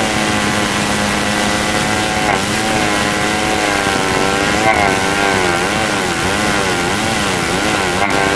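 Old two-stroke chainsaw at full throttle, rip-cutting a damar log lengthwise along the grain. The engine note holds steady at first, then from about halfway wavers up and down as the saw labours and recovers under the load of the cut.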